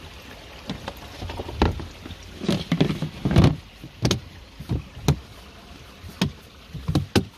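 Plastic lid of a pond filter box being lowered shut and handled: a string of hollow knocks and clacks, the loudest about three and a half seconds in.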